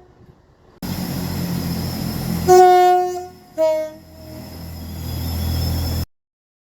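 Two-tone train horn: a higher note lasting under a second, then a short lower note, over the steady rumble of the train. The rumble starts abruptly about a second in, grows louder, and cuts off suddenly near the end.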